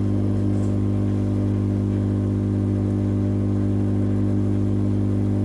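Hot air rework gun running, a steady hum with overtones, while heating a speaker's charging jack to melt its solder for removal.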